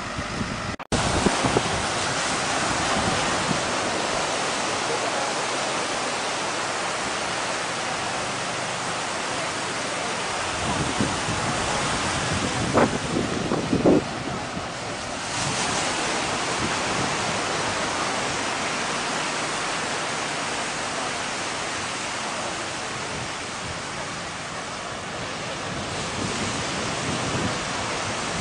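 Steady rush of wind buffeting the microphone over surf washing up the beach.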